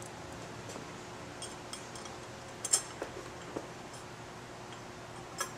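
A handful of light metallic clicks and ticks as tiny screws and the metal cover screen are handled and started by hand, the sharpest about halfway through, over a faint steady background hum.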